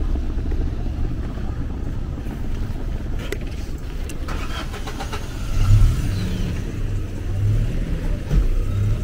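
A motor vehicle's engine running close by: a steady low rumble that swells briefly about two-thirds of the way through.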